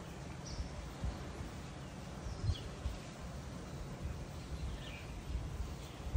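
Outdoor ambience: a steady low rumble of wind on the microphone, with a few faint high bird chirps.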